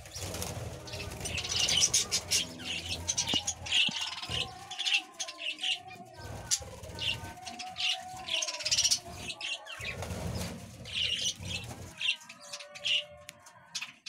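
Budgerigars chirping and chattering in short repeated bursts, with wing flutters and rustling close to the microphone.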